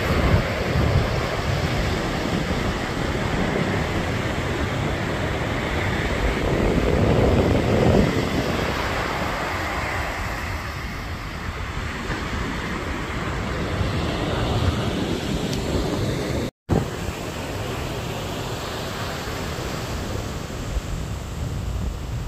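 Ocean surf breaking and washing up the beach, with wind buffeting the microphone; the rush swells about seven seconds in. The sound cuts out for an instant about two-thirds of the way through, then a steadier, slightly quieter rush goes on.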